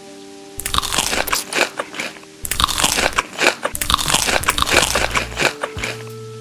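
Someone biting into and chewing crunchy food close to the microphone, a dense run of crunches in two stretches with a short break about two seconds in. The crunching stops shortly before the end, leaving soft music.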